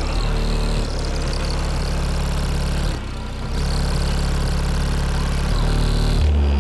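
Bass-heavy music played loud through a truck's four 15-inch DD subwoofers in a fourth-order blowthrough enclosure. Deep sustained bass notes change every second or so, with a brief drop about three seconds in.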